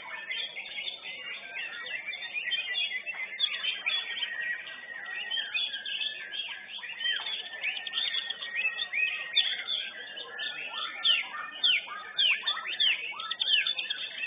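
White-rumped shamas (murai batu) singing, several birds at once: a dense run of quick whistles, chirps and trills, with sharp falling whistles standing out more in the second half.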